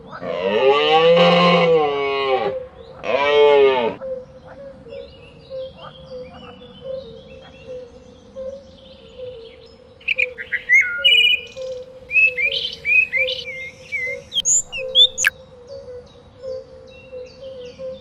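Two bleats: a long, quavering one and then a shorter one. After a pause, a songbird chirps in a quick series of short, high chirps and whistles.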